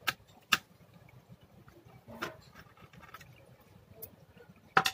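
About five scattered, sharp clicks and taps of a screwdriver and small plastic and metal laptop parts as the Wi-Fi card's screw is taken out, the loudest just before the end.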